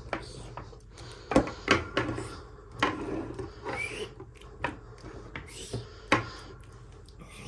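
Small plastic toy packaging being handled and opened: a run of irregular sharp clicks and taps with rubbing and scraping between them, and a short rising squeak about four seconds in.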